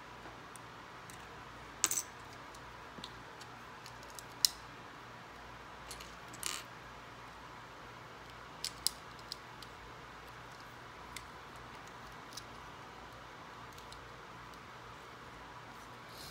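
Plastic LEGO bricks clicking and clattering now and then as pieces are handled, set down and pressed together on a wooden table: a dozen or so sharp separate clicks, the loudest about two and four and a half seconds in, over a faint steady hum.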